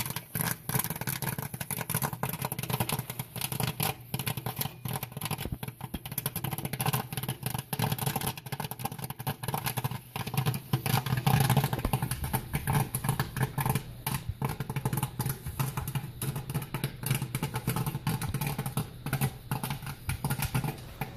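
Commercial popcorn machine's 8-ounce kettle popping corn: a dense, irregular crackle of kernels popping, with popped corn clattering out of the kettle, over the steady hum of the machine's motor.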